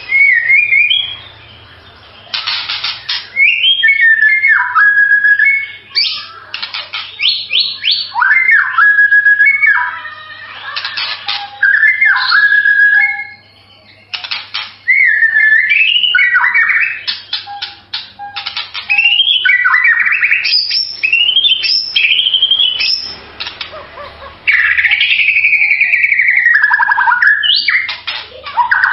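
White-rumped shama (murai batu) singing: loud, clear whistled phrases with notes that slide up and down, mixed with fast rattling trills, in a run of phrases separated by short pauses.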